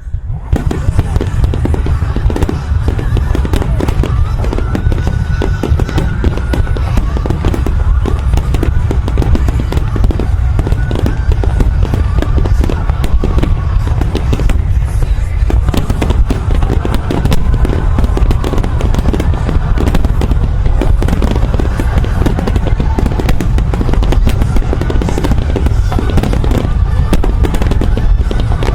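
Dense fireworks barrage, with bursts and booms packed close together without a pause, over loud music from the music fireworks show.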